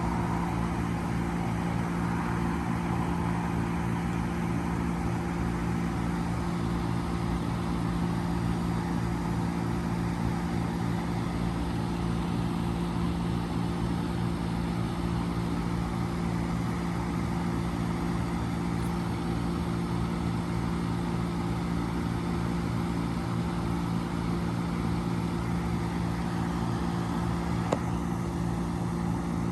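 2005 Trane XL1200 3.5-ton packaged heat pump running steadily in heat mode, a constant low hum with one light tick near the end.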